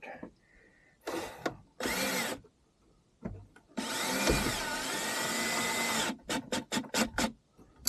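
Power drill driving M6 bolts: two short bursts, then a longer run of about two seconds with a wavering motor whine, followed by a quick series of clicks.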